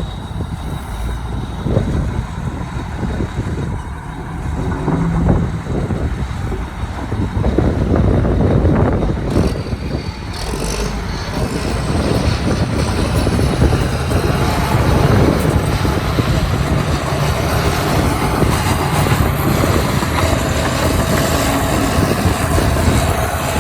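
Heavy diesel earthmoving machinery running under load, a dense rumble that grows louder about eight seconds in.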